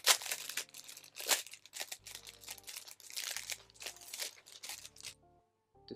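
Packaging crinkling and rustling as a pack of stickers is unwrapped by hand, a run of irregular crackles with a couple of sharper, louder ones near the start, stopping about five seconds in.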